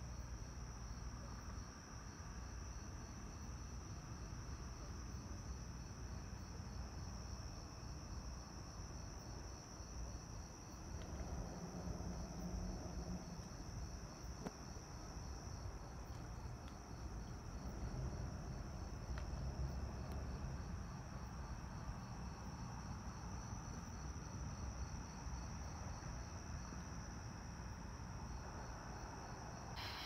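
Insects calling: a steady high trill with a faint, regular chirping about two or three times a second, over a low background rumble.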